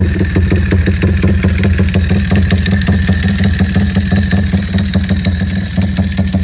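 A modified Yamaha Y15's 150cc single-cylinder four-stroke engine idling steadily at an even speed. The bike is fitted with a Comstar dry clutch and a modified exhaust.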